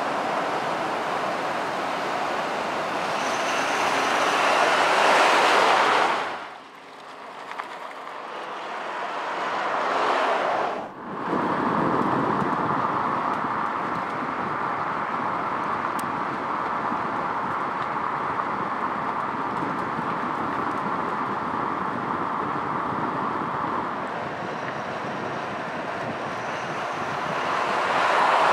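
2020 Ford Super Duty F-250 pickup driving by on asphalt: a steady rush of tyre and road noise that swells and drops off sharply twice, about six and eleven seconds in, then runs evenly and swells again near the end.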